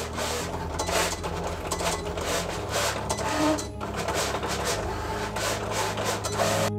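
Cricut cutting machine cutting Smart Vinyl without a mat with its fine-point blade: the motors whir as the blade carriage moves across and the rollers feed the vinyl, and the hum shifts in pitch every couple of seconds. The sound stops abruptly near the end, where jingling music comes in.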